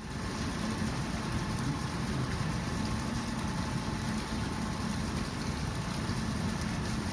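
Steady splashing hiss of the diving well's surface sprayers, water jets pattering onto the pool.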